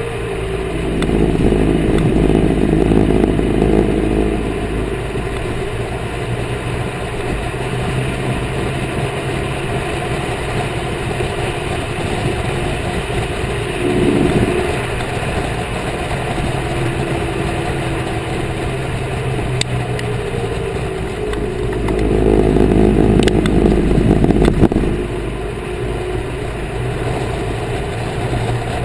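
2010 Corvette Grand Sport's V8 and road noise while driving, steady, with two louder stretches of low rumble, about a second in and again near the end, and a short swell midway.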